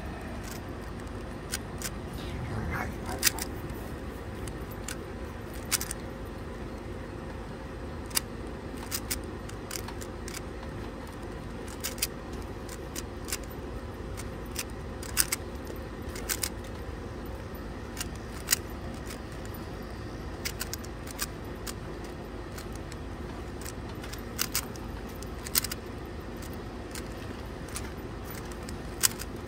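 Plastic 3x3 Rubik's cube being turned quickly by hand, its layers making irregular sharp clicks and clacks, over a steady low background rumble.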